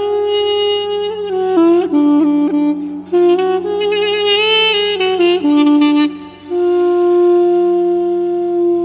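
Background music: a single melodic instrument line of changing notes with some slides, settling into one long held note about two-thirds through, over a low steady hum.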